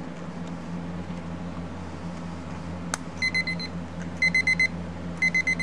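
Cheap dollar-store quartz alarm clock's electronic alarm: a click about three seconds in, then rapid high beeps in short bursts about once a second.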